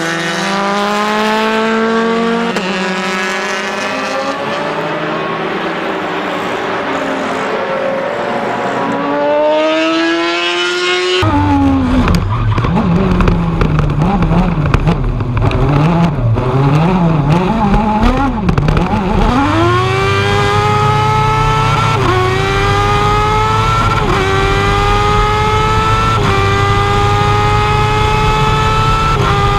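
1000cc superbike engines in Formula 1000 race cars at high revs. For the first eleven seconds the engine note shifts and glides up and down. Then, heard onboard, one engine revs up and down unevenly before accelerating hard through the gears, its pitch climbing and dropping at each upshift about every two seconds.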